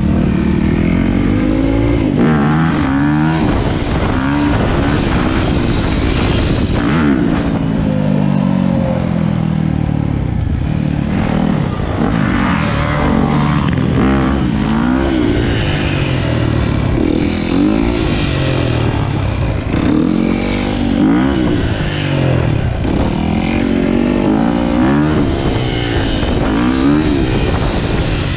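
Dirt bike engine revving up and down over and over while being ridden, its pitch rising and falling every second or two; loud throughout.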